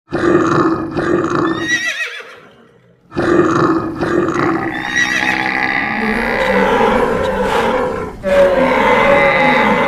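Animal stampede sound effect: a dense mix of animal calls and roars, with a horse whinnying, over a running herd. It breaks off into near silence about two seconds in and starts over about a second later, running on thicker to the end.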